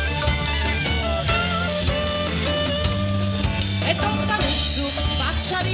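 Live rock band playing, amplified: drum kit and electric guitars over a steady bass line.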